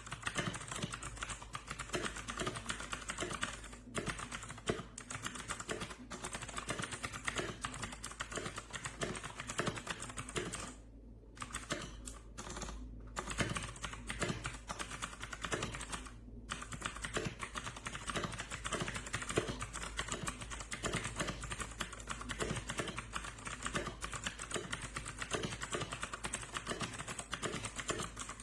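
Fast continuous typing on a Royal Kludge RK61 60% mechanical keyboard: a dense run of key clacks, broken by a few short pauses around the middle.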